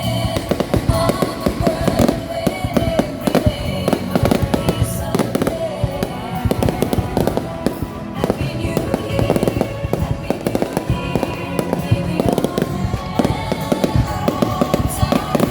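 Fireworks going off in dense, rapid succession: a continuous run of bangs and crackles, with music playing underneath.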